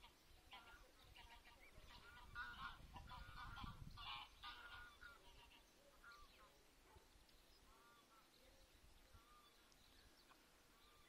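Greylag geese calling faintly, a flurry of short overlapping calls through the first half that thins to scattered single calls later.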